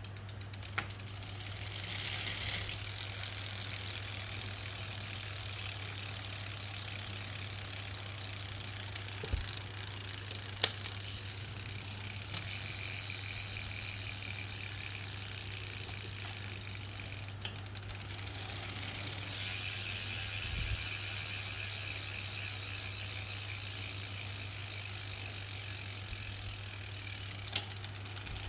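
Brompton 6-speed folding bicycle's drivetrain clicking steadily as the pedals turn, a clicking the owner has been told is normal. The sound changes about 2 seconds in and gets louder about 19 seconds in.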